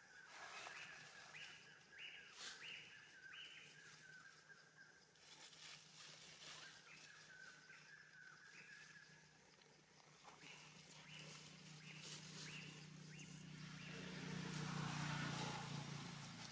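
Short high chirping animal calls, repeated in runs, over faint outdoor background; a low steady hum swells about two seconds before the end.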